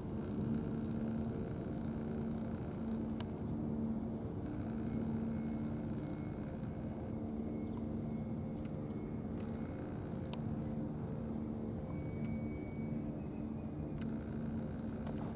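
An engine running steadily with a low, even drone that holds the same pitch throughout. A few faint clicks sound over it.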